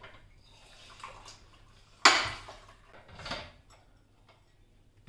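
Manual lever citrus press squeezing orange halves: a sharp clack as the press comes down about two seconds in, then a softer wet sound about a second later.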